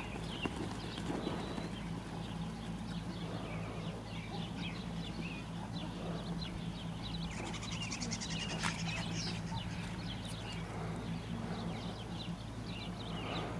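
Outdoor ambience with many short high chirps of small birds over a steady low hum, and a brief run of rapid ticking or rattling about seven seconds in.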